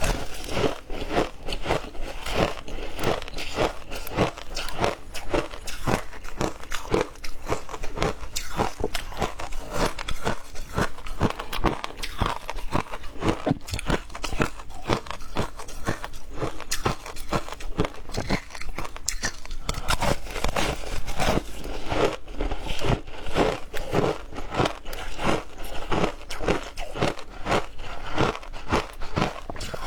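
A person biting and chewing ice with close, repeated crunching, several crunches a second, keeping on without a break.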